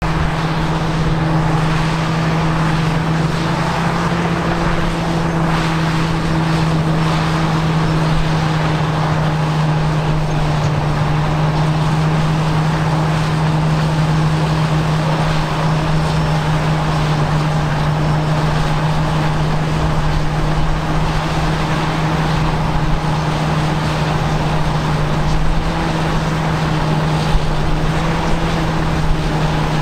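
Caterpillar D8K crawler dozers' diesel engines running steadily, a constant deep drone with the noise of the machines working over it.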